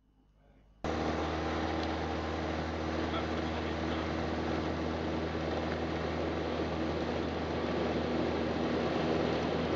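Piper light aircraft's piston engine at takeoff power, heard from inside the cockpit during the takeoff roll. The steady engine drone cuts in suddenly about a second in and holds.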